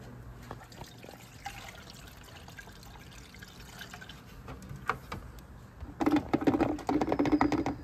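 Engine coolant being poured into the overflow reservoir: faint handling clicks at first, then a loud pour with a rapid run of gulps starting about six seconds in.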